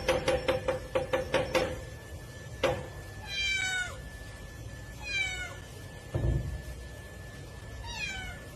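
A cat meowing three times, each meow falling in pitch. The meows come after a quick run of sharp knocks at the start and a single knock about two and a half seconds in. There is a dull thump about six seconds in.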